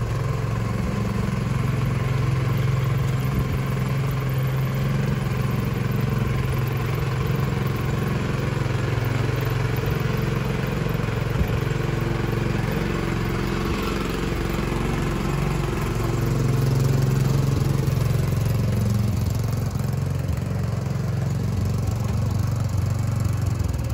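Single-cylinder engine of a two-wheel walking tractor (patpat) running steadily as it pulls a trailer loaded with hay bales. It gets a little louder about two-thirds of the way through.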